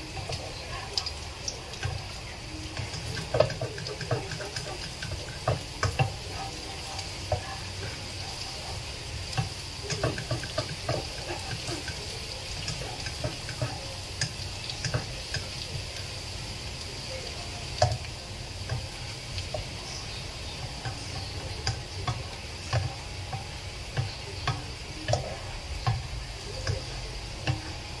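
Chopped garlic sizzling in oil in a non-stick pan, stirred with a plastic spatula that scrapes and taps against the pan at irregular intervals.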